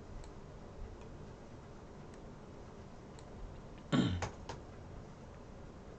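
Faint, scattered computer mouse clicks over a low room hum. About four seconds in there is a short, louder thump, then two quick clicks.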